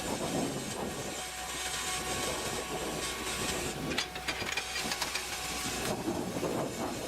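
Steady mechanical running noise with a hiss, and a cluster of sharp clicks or cracks about four seconds in.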